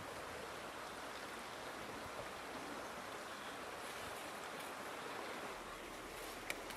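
Shallow river rushing steadily over stones, with one sharp click near the end.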